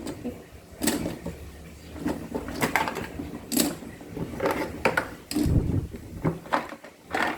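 Washing machine running with a low steady hum and irregular clicks and knocks.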